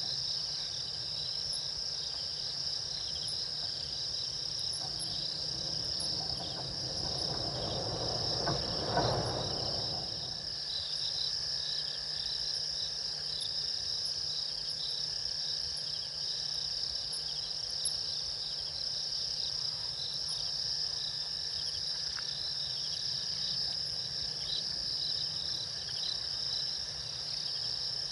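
Night insects, crickets, chirring in a steady high chorus, with a brief swell of lower rushing noise that builds and fades about nine seconds in.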